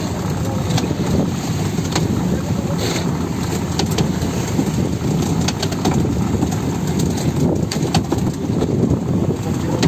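Fishing boat's engine running steadily while a deck capstan winch hauls in the net rope, with scattered sharp clicks throughout.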